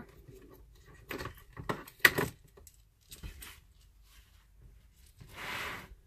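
Handling noise as electrical leads are slipped through a plastic battery housing: a few light clicks and rustles of wire and plastic, then a brief rubbing hiss near the end.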